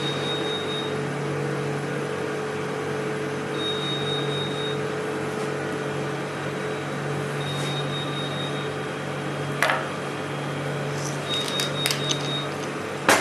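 Steady low hum of kitchen equipment with an on-and-off high whine, with a sharp click about ten seconds in, a few light clinks a second or two later and a louder knock at the end, as utensils touch the plate while the meat is plated.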